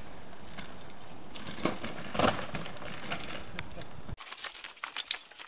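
Mountain bike crashing on a dirt trail: a few hard thuds and a rattle about one and a half to two and a half seconds in, over a steady hiss. After that come scattered light crackling clicks.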